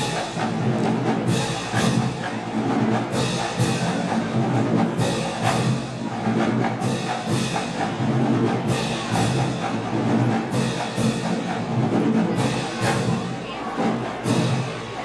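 Marching band playing: sustained brass over drums, with a pair of sharp percussion strokes or cymbal crashes about every two seconds on a steady beat.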